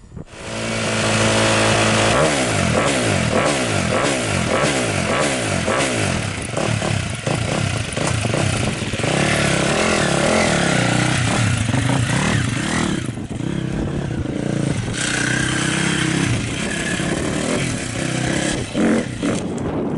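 Husqvarna motocross bike engine coming in suddenly and revving up and down again and again, then running on under changing throttle as the bike pulls away.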